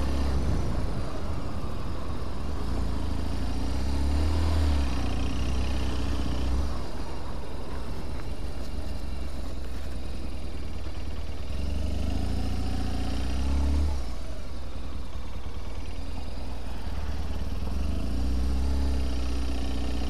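Motorcycle engine running at low street speed, heard from the rider's position, with wind hiss on the microphone. The engine note climbs and drops back three times as it accelerates and shifts, about five seconds in, again near fourteen seconds and near the end.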